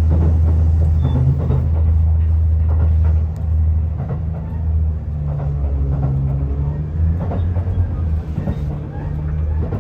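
Low steady hum and rumble inside the passenger car of a JR Central HC85 series hybrid diesel-electric train, with a few faint knocks.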